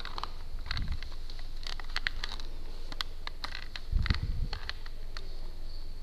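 Knuckles knocking on an apartment door: dull thuds about a second in and again a few seconds later, amid scattered light clicks and rustling of clothing and gear.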